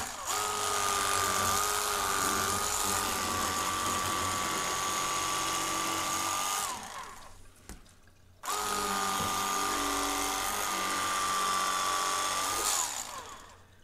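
Electric fillet knife running in two steady runs of about six and four seconds with a short pause between, a high motor whine whose pitch sags briefly as each run is switched off, while it cuts fillets off crappie.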